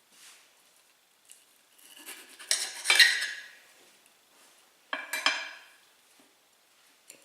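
Knife and fork clinking and scraping on a plate, in two short bursts: one about two to three seconds in and a briefer one about five seconds in.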